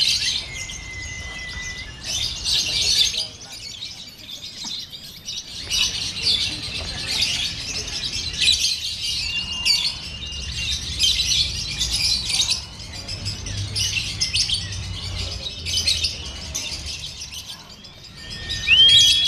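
Lovebird chattering in a long, unbroken run of rapid high chirps, the continuous 'konslet' style of song prized in lovebird contests. A few held whistle-like notes stand out, one at the start and more near the end.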